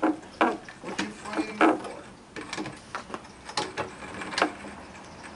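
Irregular light metal clicks and clunks, about a dozen over a few seconds, as a Corvair engine and transaxle are eased down and worked loose on a floor jack.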